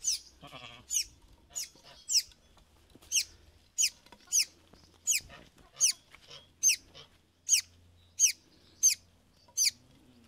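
A bird chirping over and over: short, high chirps that fall in pitch, repeated steadily about every half second.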